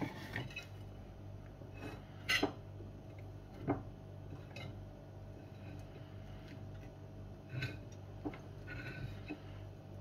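A few scattered clinks and knocks of cutlery and dishes during a meal, the sharpest about two and a half seconds in, over a steady low hum.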